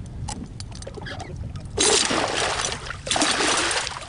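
A musky thrashing in a landing net at the water's surface, making two loud bursts of splashing: the first about two seconds in, the second a second later. Small clicks come before them.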